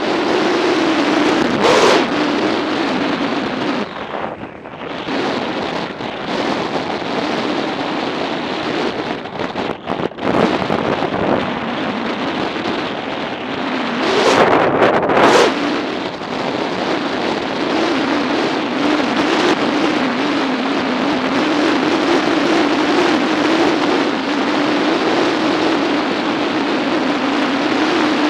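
Motorcycle riding at road speed: heavy wind rush on the microphone over a steady engine drone. Two louder rushes swell up, one about two seconds in and one about fourteen seconds in.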